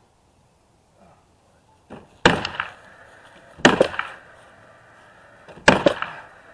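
Nail gun firing three times, driving nails through OSB sheathing into the wall framing; each shot is a sharp double crack, about a second and a half to two seconds apart. A faint steady high whine holds between the shots.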